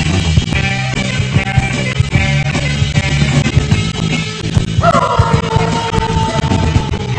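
Rock music with a steady drum beat; about five seconds in, a long held note comes in and slides slightly down in pitch.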